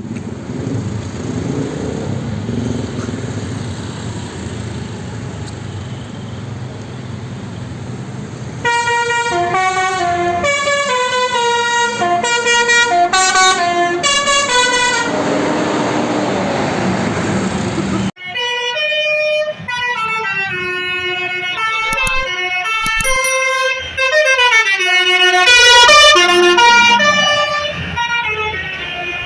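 Bus telolet basuri horn, a set of roof-mounted air-horn trumpets, playing quick tunes of stepped notes, heard twice. The first tune starts about nine seconds in and lasts about six seconds. The second comes after an abrupt cut and ends with rising and falling slides. Before the first tune there is only a steady noisy background.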